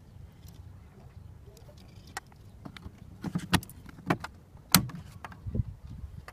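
Hand work on the car door's wiring: a handful of sharp, separate clicks and knocks of plastic connectors and parts being handled, starting about two seconds in, over a faint low hum.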